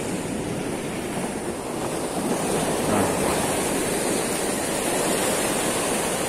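Sea surf washing and breaking over shoreline rocks, a steady rush that swells a little about two seconds in.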